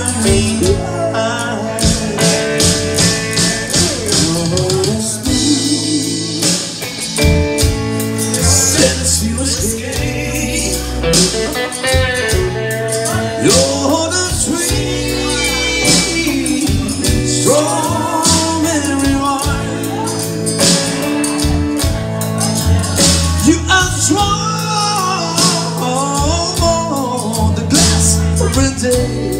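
A man singing a mid-tempo song with electric guitar, over a steady beat with bass and drums.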